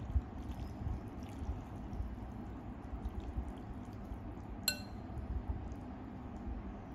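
Metal spoon clinking once, sharp and ringing, against a ceramic bowl about two-thirds of the way in, amid soft small ticks and wet sounds of noodles being stirred and lifted with chopsticks and spoon.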